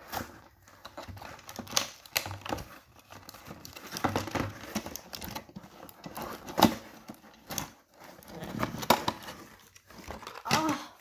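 Clear plastic blister packaging and a cardboard toy box crinkling, crackling and tearing as hands pry a toy engine out, with several louder snaps along the way.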